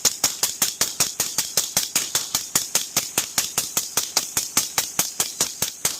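Rapid gunfire: a long, even string of shots at about six a second, fired without a break.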